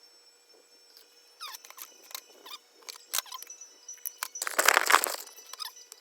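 Scattered light clicks and taps of things being handled, with a louder noisy burst lasting about a second near the end.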